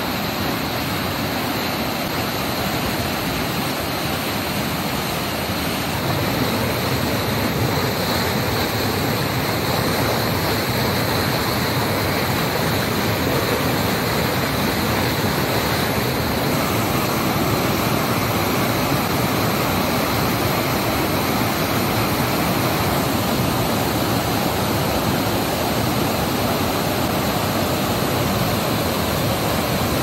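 Waterfall: a steady, loud rush of falling water, growing slightly louder about six seconds in.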